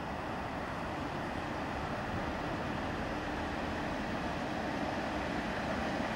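Class 47 diesel locomotives' Sulzer engines heard approaching in the distance, a steady rumble growing slowly louder with a faint steady drone.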